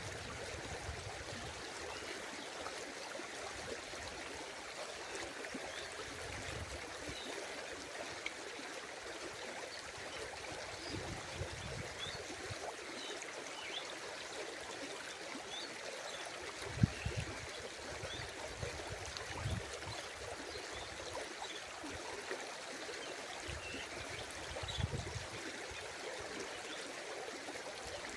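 Steady rush of running water, with a few brief low thumps, the sharpest a little past the middle.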